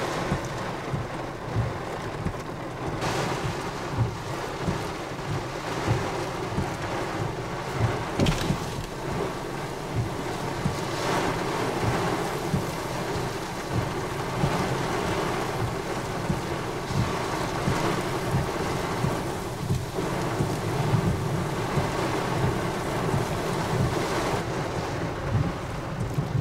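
Gusty tropical-storm wind with rain, swelling and easing several times, and the wind buffeting the microphone in low rumbles.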